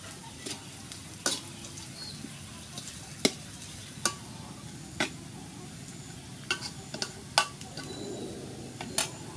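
Sliced lemongrass sizzling in hot oil in a wok while a metal spatula stirs it. The spatula scrapes and clicks against the pan about once a second.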